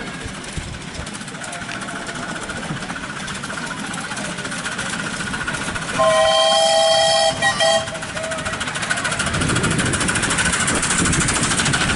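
Miniature steam locomotive's whistle: one long blast of several tones sounding together about six seconds in, then two short toots. Toward the end the train's running noise grows louder as it comes close.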